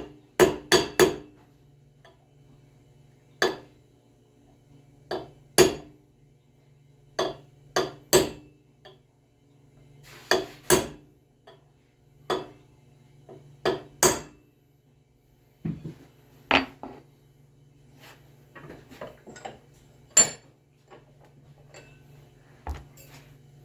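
Hammer striking a steel punch against the metal of a treadmill roller, flattening it: sharp metallic blows, singly or in quick pairs, every second or two, stopping about 20 seconds in. A low steady hum runs underneath.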